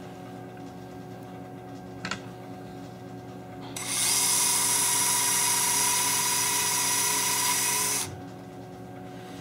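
Surgical power drill boring through a drilling jig into a dog's tibia, making holes for the TTA plate screws. It runs steadily with a high whine for about four seconds, starting about four seconds in and stopping abruptly.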